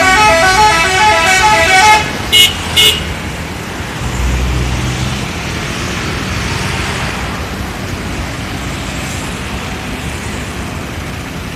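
Indonesian 'telolet' bus horn playing a fast stepping multi-note melody that ends about two seconds in, followed by two short sharp horn toots. A low engine rumble then comes in and settles into steady road noise.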